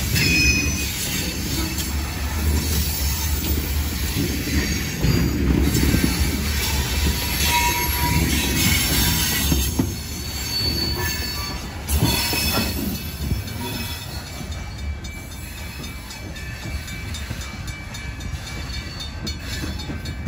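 Northwestern Pacific freight train of covered hopper cars rolling past, its wheels rumbling with brief high-pitched squeals. The sound eases off about twelve seconds in as the last car goes by and the train moves away.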